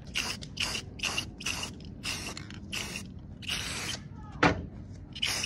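Aerosol spray paint can spraying gold paint in a string of short hissing bursts, about two a second, with one longer spray near the four-second mark. About four and a half seconds in comes a sharper, louder burst.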